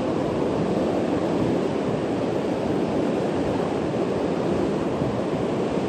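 Steady rush of river rapids: fast water running over rocks.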